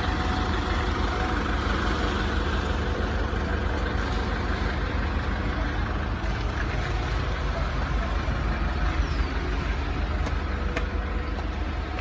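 Concrete pump running steadily at work: a constant low mechanical drone.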